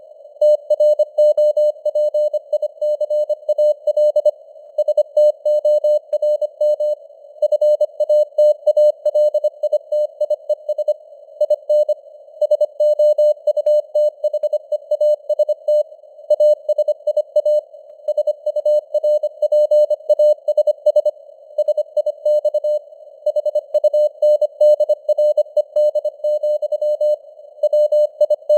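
Morse code sent at 25 words per minute: a single steady beep keyed on and off in rapid dots and dashes, with short pauses between words, over a narrow band of hiss that simulates radio noise, the signal strength rising and falling as in radio fading (QSB).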